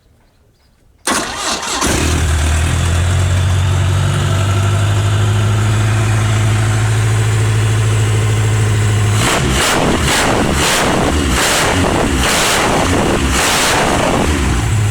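Fuel-injected Chevrolet Opala four-cylinder engine starting about a second in, settling into a steady idle with a deep note, then revved in six short throttle blips over the last few seconds before dropping back to idle.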